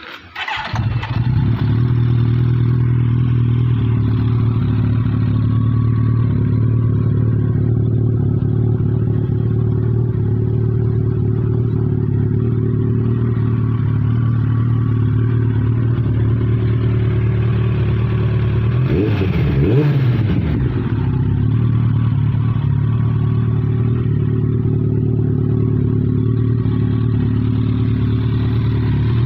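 Kawasaki ZX-14R inline-four engine, fitted with an aftermarket full-system exhaust, firing up just after the start and then idling steadily. About two-thirds of the way through it gets one quick blip of the throttle, rising and falling back to idle.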